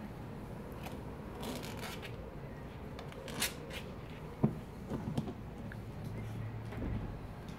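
Black Labrador retriever puppies scuffling against and mouthing a plastic pet carrier: scattered scraping and rubbing with a few light knocks, the sharpest about four and a half seconds in.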